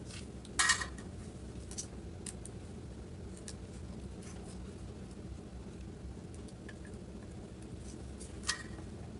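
Light clicks and clatter of a small circuit board being handled and clipped in and out of a helping-hands stand's alligator clips: a short loud rattle about half a second in, a few faint ticks after it, and a sharp click near the end, over a low steady hum.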